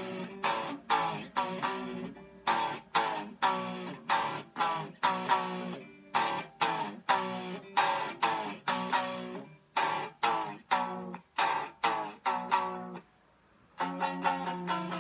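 Electric guitar strings struck over and over with a plastic rod, each chord ringing briefly and dying away, about two strikes a second. The playing stops for under a second near the end, then comes back as fast, even strumming.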